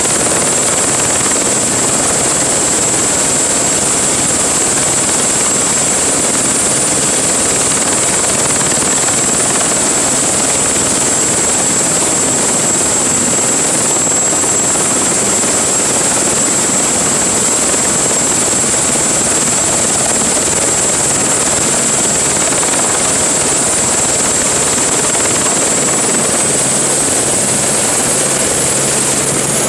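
Turbine helicopter running on the ground with its rotor turning: a loud, steady high turbine whine over rotor and engine noise. Near the end the whine rises in pitch as power comes up for lift-off.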